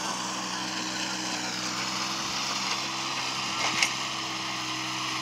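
VST Shakti compact tractor's diesel engine running steadily under load as it pulls a rotary tiller through the field. A single sharp click comes about four seconds in.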